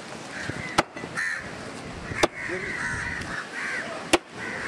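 Three sharp knocks of a heavy knife chopping through a trevally into a wooden cutting block, about a second and a half apart, with crows cawing in the background.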